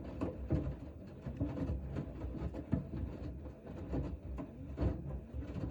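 Hoover H-Wash 500 washing machine in the main wash of a 90 °C cotton cycle. The drum tumbles the wet load with irregular knocks and sloshing, and the motor's whine rises and falls as the drum turns.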